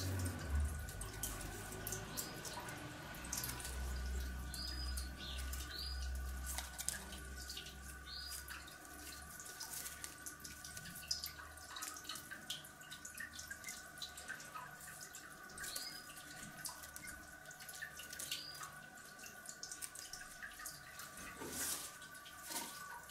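Pruning shears snipping pairs of leaves off olive sprigs, with the rustle of the leafy twigs being handled: short sharp clicks at an uneven pace.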